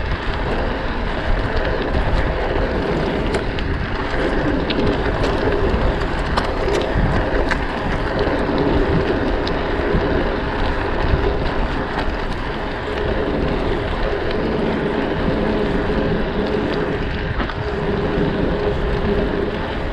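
Steady rumble of a dirt jump bike rolling along pavement, with wind buffeting the microphone and a few light clicks and rattles.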